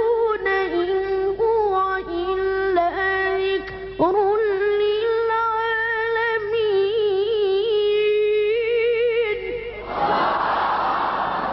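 A single unaccompanied voice reciting the Quran in long, drawn-out melodic notes with wavering ornaments and pitch slides. About ten seconds in, the voice gives way to a crowd of listeners calling out all at once.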